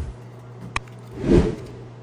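A sharp click about three-quarters of a second in, then a rising and falling whoosh, over a steady low hum.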